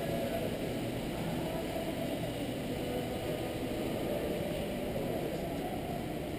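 Steady low rumble and hum of a large store's indoor ambience, with faint steady tones and no distinct events.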